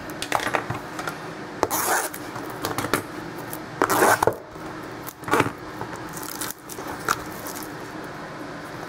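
Scraping, rubbing and tearing of packaging as a sealed box of trading cards is opened by hand, in irregular strokes and clicks. The loudest bursts come about two and four seconds in.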